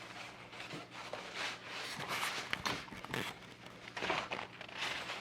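Soft rustling and handling noises: a string of brief scuffs about every half second to a second.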